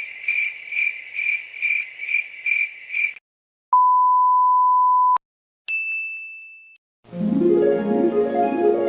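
A run of editing sound effects: a high tone pulsing about three times a second, then a steady 1 kHz censor bleep for about a second and a half, then a single bright ding that fades away. About seven seconds in, plucked-string music like a harp starts.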